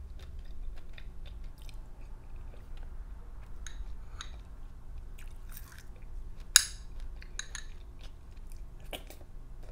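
Eating butter pecan ice cream with nuts and whipped topping: soft chewing, and a metal spoon scraping and clinking in the bowl. One sharp clink about six and a half seconds in is the loudest sound.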